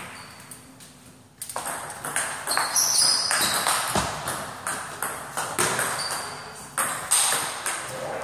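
Table tennis rally: the celluloid ball clicking sharply off the rackets and the table, a few hits a second, starting about a second and a half in after a short quiet spell as the serve goes in.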